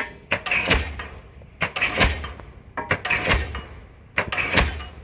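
Diesel pile hammer striking a pile in a steady cycle: sharp metallic blows in pairs about a third of a second apart, repeating about every 1.3 seconds, each with a low rumble beneath it.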